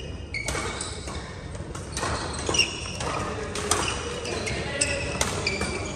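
Badminton rally: sharp racket hits on the shuttlecock about once a second, mixed with the high squeaks of shoes on the sports-court floor, echoing in a large hall.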